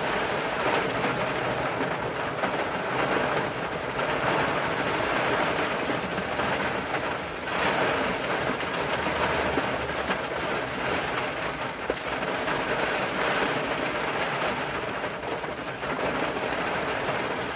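Heavy rain drumming on a car's roof and windows, heard from inside the car: a dense, steady patter that swells and eases a little.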